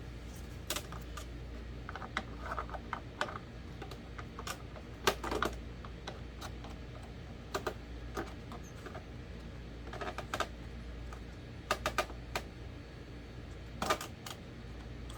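Irregular clicks and taps of hard plastic fan parts being handled and pressed together, some in quick little clusters, over a low steady hum.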